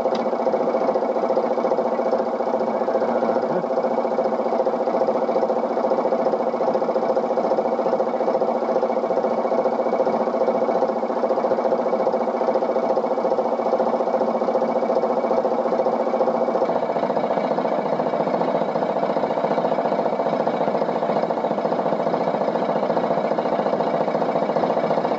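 A narrowboat's diesel engine idling steadily, its even beat unchanging while the boat waits at a lock.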